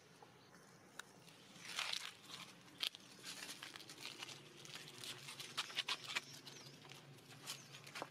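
Irregular soft rustling and crackling of dry leaf litter as monkeys shift on the ground close by, with a few sharp clicks, the loudest about three seconds in.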